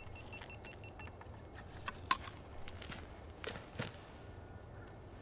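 Faint scattered knocks and scrapes as a freshly caught jack is handled on a concrete seawall. In the first second there is a quick run of about eight short, high beeping ticks.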